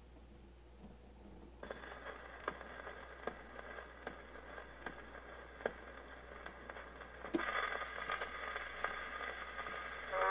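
Old disc record's run-in groove playing on a 1947 Birch 700 portable record player. After about a second and a half the needle's surface hiss comes in over a steady low hum, with a sharp click about every three-quarters of a second, once per turn of the worn record. The hiss grows louder about seven seconds in, just before the music starts.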